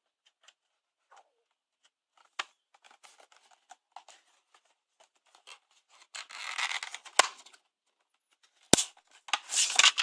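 Retail packaging being opened by hand. Scattered light clicks and rustles, then a scraping tear lasting about a second from about six seconds in. Two sharp clicks follow, a second and a half apart, then more rustling near the end.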